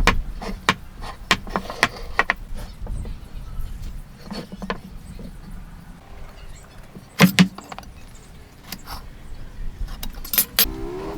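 Irregular sharp knocks and clicks of wood and hand tools being handled and worked, with the loudest, a pair of knocks, about seven seconds in.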